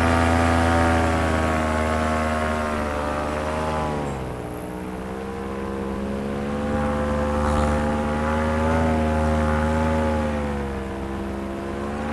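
Paramotor engine and propeller running under power as the machine flies low over the field. The pitch drops about four seconds in, then rises and falls gently.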